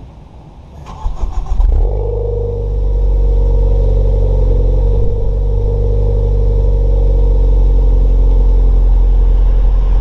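Tuned car engine cranked by its starter for about a second, then catching and settling into a steady idle.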